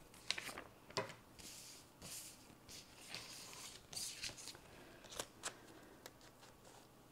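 Washi tape and paper being handled on a spiral planner page: a few light taps and clicks, the sharpest about a second in, with soft paper rustling and rubbing as the strips are laid down and smoothed with the fingers.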